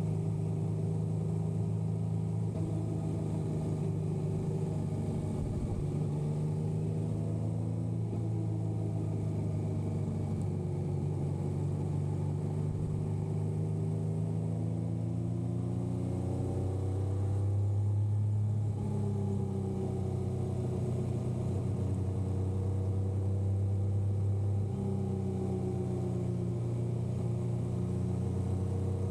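Yamaha motorcycle engine running under way, its pitch drifting up and down a little with the throttle and briefly louder about two-thirds of the way through.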